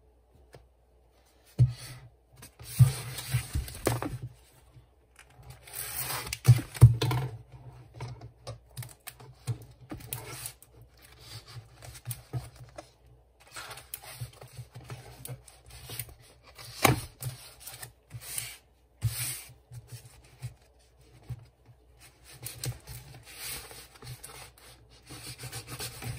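Cardboard comic mailer being handled and opened by hand: irregular tearing, rubbing and scraping of cardboard and tape against the desk, broken by short pauses and a few sharp knocks.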